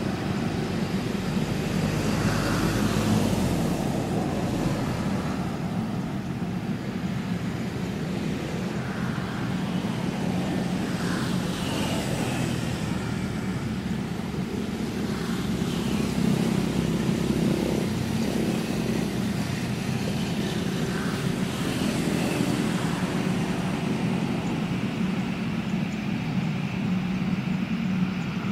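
Jet engines of airliners at taxi power, a Boeing 777F's GE90 turbofans and an Airbus A320's, making a steady low rumble.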